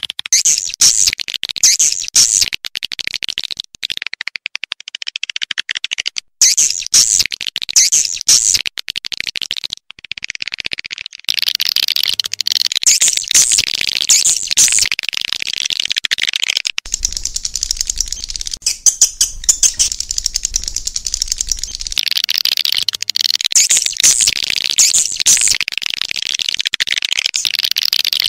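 Swiftlets calling: dense, high-pitched twittering chatter, with sharper chirps repeating about once a second in stretches.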